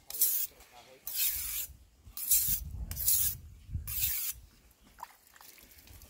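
Knife blade drawn across a sharpening stone: five grinding strokes about a second apart, stopping a little over four seconds in.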